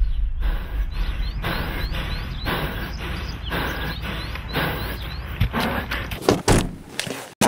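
Electronic background music with a steady pulsing beat of about two beats a second and short rising synth chirps. It breaks into quicker stuttering hits near the end and cuts off abruptly.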